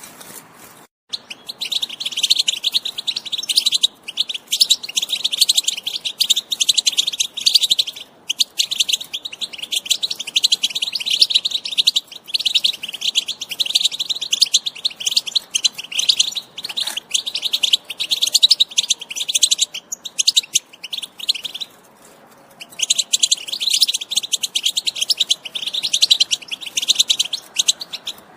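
European goldfinch singing a fast, continuous twittering song, with a short break about two-thirds through before it starts again.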